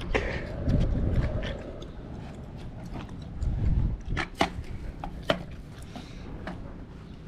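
Kick scooter wheels rolling over rough, cracked asphalt, with a low rumble for the first couple of seconds, then a handful of sharp clacks from the scooter.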